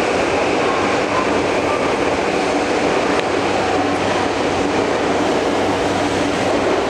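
Steady, unbroken rumble and hiss of a subway train at an underground platform.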